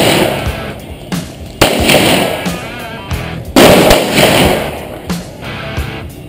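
Pistol shots: two loud, sudden reports about two seconds apart, over background music.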